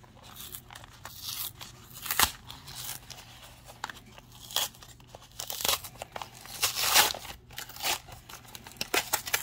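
Cardboard packaging of a trading-card mystery box being torn open and handled: irregular crinkling, tearing and crunching, with louder tears about two seconds and seven seconds in.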